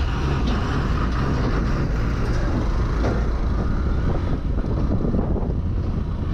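Hero Xpulse 200 motorcycle's single-cylinder engine running steadily while under way, with road noise.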